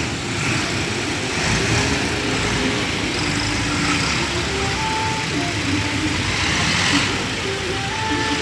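Farm tractor engines running steadily as tractors drive past in a slow procession.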